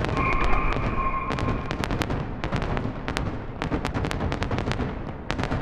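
A rapid barrage of aerial firework shells bursting, sharp cracking reports several a second over a low rumble.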